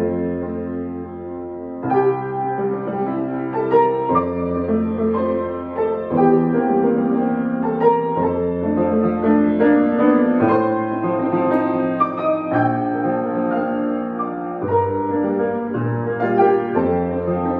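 Solo piano playing a classical piece, with deep bass notes struck about every two seconds beneath a moving melody.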